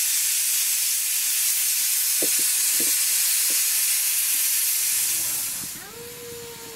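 Pressure cooker releasing steam in a loud, steady hiss, which dies away about five and a half seconds in. A few light knocks sound under the hiss.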